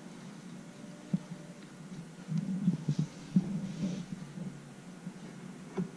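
Scattered light clicks and knocks of metal scope rings and a rifle scope being handled on a Picatinny rail, thickest in the middle, over a low steady hum.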